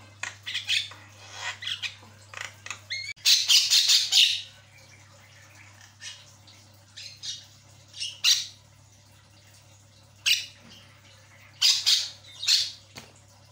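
Javan myna (jalak kebo) calling in bursts of harsh squawks and chatter. The loudest is a harsh burst of about a second a few seconds in, and more squawks come near the end.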